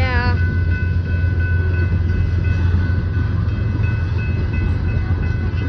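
Freight train rolling past: a steady, heavy low rumble with several steady high-pitched tones over it.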